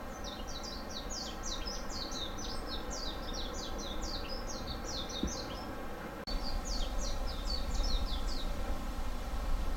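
A small songbird singing a rapid, unbroken run of short high chirps, with a brief pause about six seconds in, over a steady low hum and rumble.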